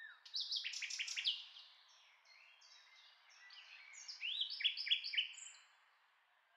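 Birds chirping faintly: two bursts of quick, high, falling chirps, the first about a quarter-second in and the second around four seconds in, over a light hiss.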